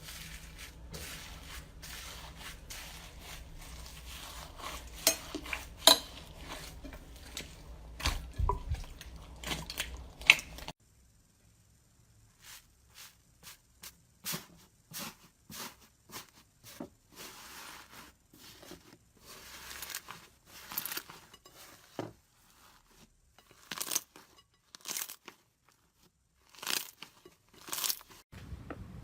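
Slime worked by hand, crackling and popping with many sharp clicks. For the first ten seconds or so the clicks come thick over a low hum; after an abrupt change they come as sparser, separate pops and crackles.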